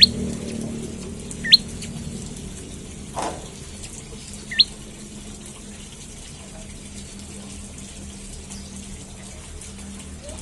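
Prenjak lumut giving three short, sharp chirps that sweep quickly upward in pitch, the last about four and a half seconds in. A steady low hum runs underneath, with a brief soft knock about three seconds in.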